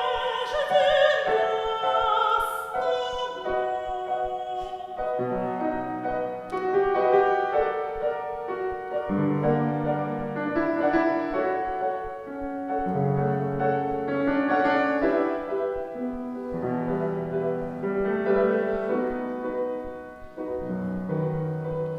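Female singer performing an operetta arioso in classical style with wide vibrato, accompanied by piano chords.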